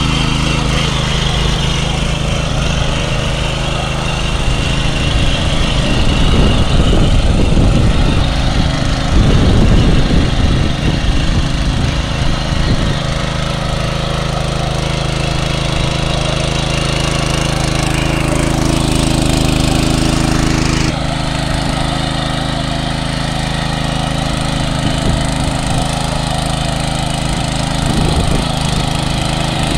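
7.5 hp petrol walk-behind rotary tiller running under load, its small single-cylinder engine running steadily as the rotating tines churn through the soil. The sound grows louder and rougher for several seconds about six seconds in, and its tone shifts abruptly about two-thirds of the way through.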